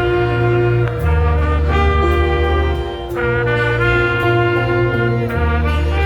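An ensemble with saxophones and brass playing held chords over a strong bass line, moving to a new chord about every two seconds.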